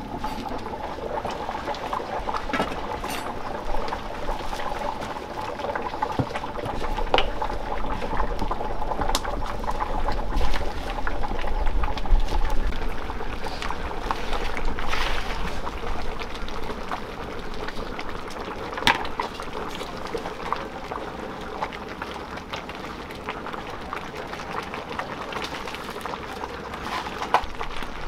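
Rice porridge boiling hard in a large pot over a wood fire: a steady bubbling with scattered pops and clicks.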